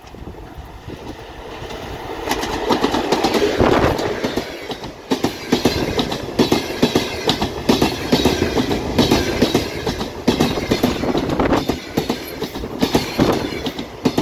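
TEP70BS diesel locomotive growing louder as it draws near and passes close by about three seconds in. Its passenger coaches follow, their wheels clattering in quick, even knocks over the rail joints.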